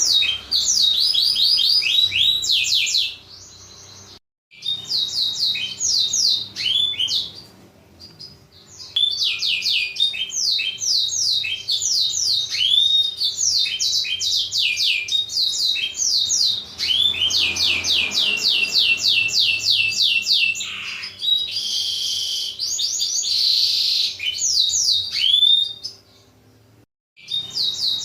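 Blackthroat (black-throated canary) singing a fast, loud song of rapidly repeated high, downward-sweeping notes in trilled runs, broken by two brief pauses.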